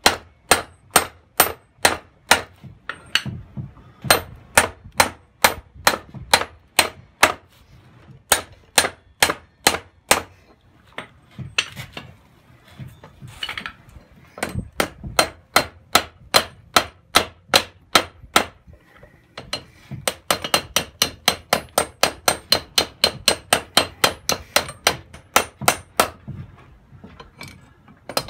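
Hand hammer striking red-hot steel on a small anvil while forging a hatchet handle, sharp ringing blows about two a second. After a short lull about halfway through, quicker blows come at about four a second.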